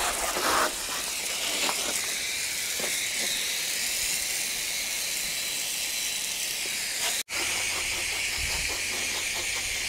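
Water spraying from a garden hose through a hose-end mixer-tap bottle onto a motorcycle, a steady hiss of spray splashing over the bodywork for the pre-wash rinse. The sound cuts out for an instant about seven seconds in, then carries on.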